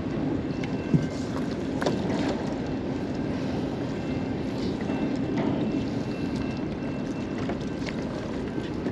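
Steady low engine hum under wind and water noise, with a few light knocks about one and two seconds in.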